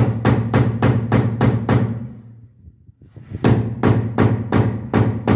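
An orange rubber mallet striking hard in quick, even blows, about three a second: a run of about seven blows, a pause of about a second and a half, then another run of about seven.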